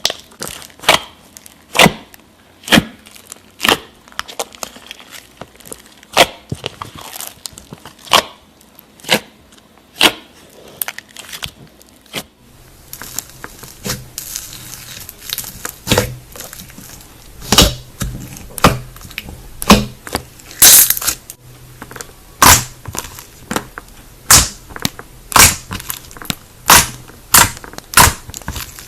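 Slime being pressed and squished by hand, giving sharp clicking pops about once a second. About twelve seconds in, a low steady hum joins and the pops come faster and louder.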